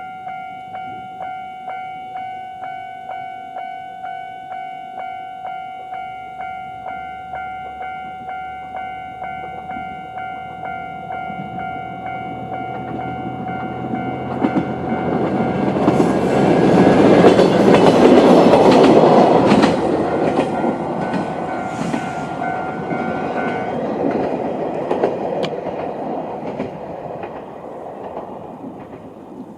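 A Japanese level-crossing warning bell rings in a quick, even rhythm of about two strikes a second. A Moka Railway Moka-14 diesel railcar approaches and passes over the crossing, its rumble swelling to a peak with wheels clacking over the rail joints. The bell stops about 24 seconds in and the train noise fades away.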